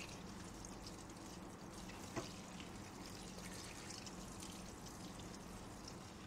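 Kitchen tap running steadily onto Malabar spinach (alugbati) leaves in a metal colander as hands rinse them, with one light click about two seconds in.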